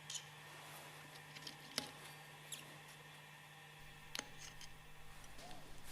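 Faint steady low hum with a handful of light, scattered clicks, the sharpest about two seconds in and another about four seconds in.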